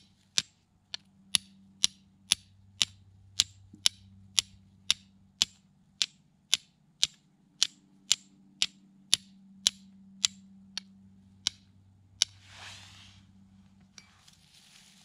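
Carbon-steel fire striker struck against a flint to throw sparks onto char cloth: a regular run of sharp metallic clicks, about two a second, stopping a little after twelve seconds. A brief rustling hiss follows near the end.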